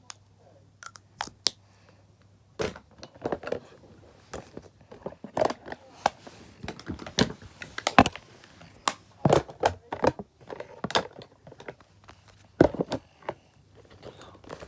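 Irregular clicks, knocks and crinkly rustles of things being handled close to a phone's microphone. They are sparse at first and come thick and fast from a couple of seconds in until near the end, over a faint steady hum.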